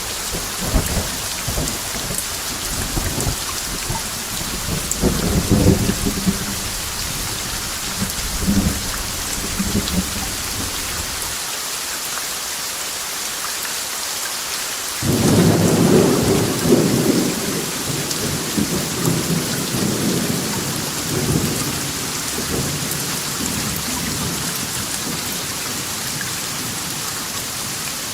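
Steady rain with rolling thunder. The low rumbles die away, then a new thunderclap breaks in suddenly about halfway through and rumbles off slowly under the rain.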